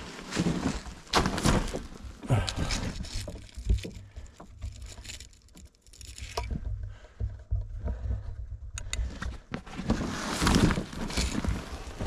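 A person scrambling over rough lava rock: irregular scrapes, rustles and clinks of clothing and gear against the rock. It quietens through the middle and gets busier again near the end.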